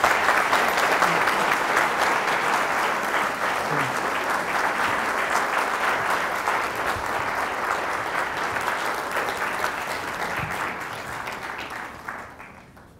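Audience applauding, a steady mass of clapping that fades out near the end.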